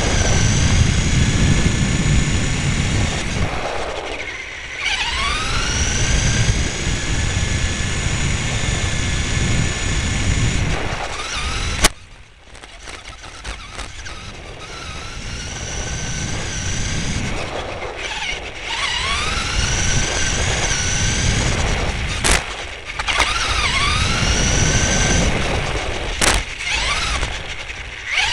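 RC car heard from its own onboard camera while driving on asphalt: a heavy rumble from the tyres and the shaking chassis, with the motor's whine sweeping up in pitch each time it speeds up. A few sharp knocks come from jolts; after a loud knock about twelve seconds in, the sound drops away, then builds back up as the car gets going again.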